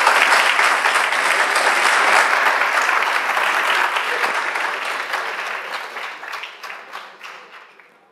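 Audience applauding at the end of a talk. The clapping is dense and steady at first, then fades out over the last few seconds.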